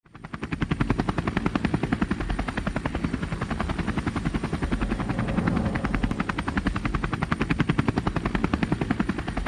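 Propeller aircraft engine sound effect: a steady, rapid chopping drone of about ten beats a second. It fades in at the start and begins to fade out near the end.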